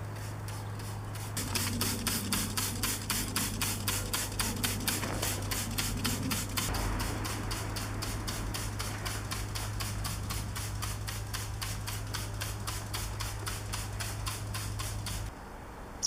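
Rapid, even scrubbing strokes, about four a second, over a steady low hum; the strokes are strongest in the first half, and the hum cuts off about a second before the end.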